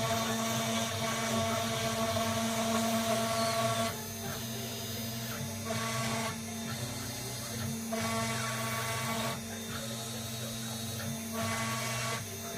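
6040 CNC router engraving plywood: the spindle runs steadily while the stepper motors whine, the sound stepping between louder and quieter passages every second or two as the axes move and change direction.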